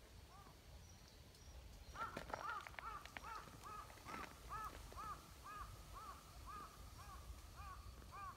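A bird calling in a fast series of short, arched notes, about two to three a second, starting about two seconds in. A few sharp clicks come as the series begins.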